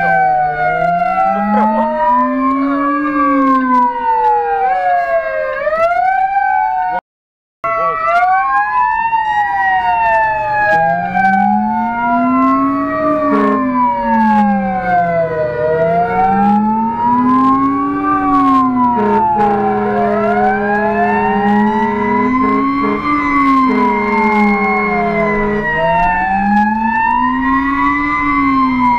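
Fire engine's siren wailing, rising and falling about every two and a half seconds, with a low rumbler tone sweeping up and down in step underneath. In the second half a steady horn tone is held for several seconds over the siren. The sound cuts out for a moment about seven seconds in.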